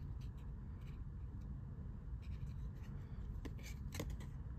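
Trading cards handled and flipped over by hand: faint slides and a few soft clicks of card stock against card stock, the clearer ones in the second half, over a low steady room hum.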